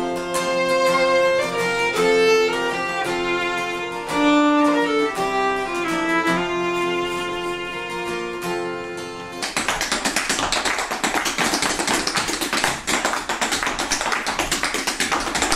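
Fiddle and acoustic guitar playing an instrumental tune, the fiddle carrying the melody. About nine and a half seconds in it cuts to a step dancer's feet tapping out rapid, sharp beats on the floor.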